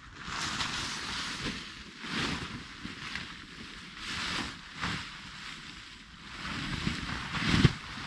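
Green tarp rustling and swishing in several bursts as it is pulled off a tent and bunched up for folding, with a louder thump near the end.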